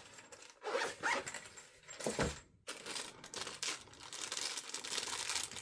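Packaging being handled: short crinkling rustles and a light knock, then a steadier crinkling rustle after a brief break about two and a half seconds in.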